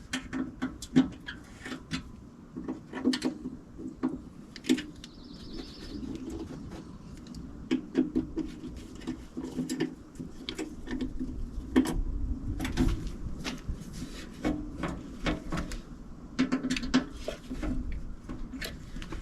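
Irregular clicks, taps and clanks of hand tools and metal hardware being worked while adjusting the fit of an aluminum UTV door.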